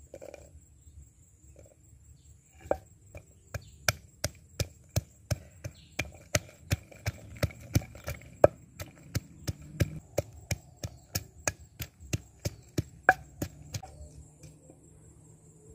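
Wooden pestle pounding chilies and garlic in a large wooden mortar: a steady rhythm of about three dull knocks a second, starting a few seconds in and stopping shortly before the end.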